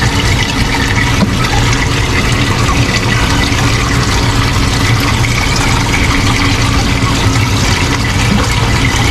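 Water from a reef aquarium's overflow falling through filter socks into the sump, a steady rush of splashing water over a low hum.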